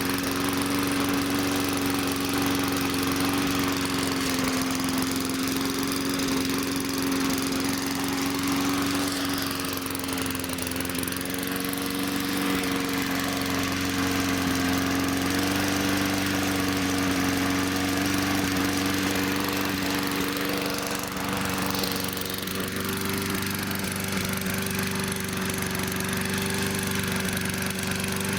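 Small gasoline engine running steadily after a hard start, its pitch shifting a little about three quarters of the way through. It is running rough and smoking, which the owner takes as a sign of probably bad piston rings burning oil.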